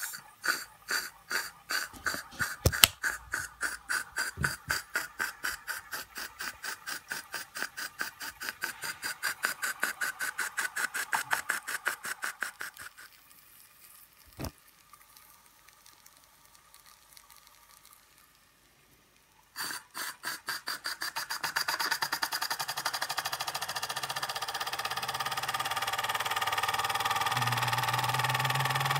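L.J.S.M. toy oscillating steam engine running, its exhaust chuffing in a regular beat that speeds up to several puffs a second. It falls silent about 13 seconds in, with a single click a little later, then starts again near 20 seconds and quickly picks up into a fast, steady run.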